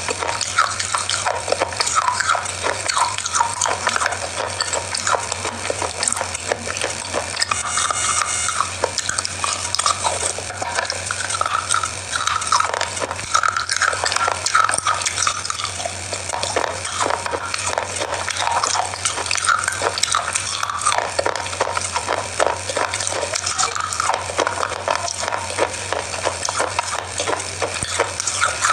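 Close-miked chewing of chocolate biscuits: continuous crisp crunching with wet mouth clicks.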